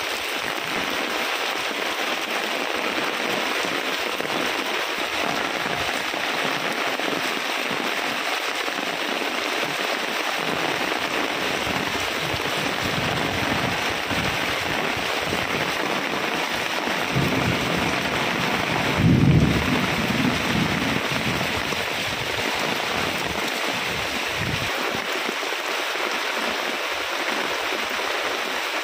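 Heavy rain falling steadily, with a low roll of thunder that swells about two-thirds of the way through and fades within a few seconds.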